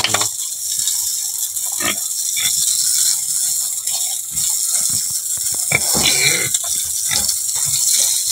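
Young domestic pig grunting several times in short calls, most of them in the second half, over the steady hiss of water spraying onto a concrete floor.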